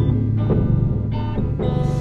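Guitar music: a riff of plucked notes, about two a second, over a steady low bass note.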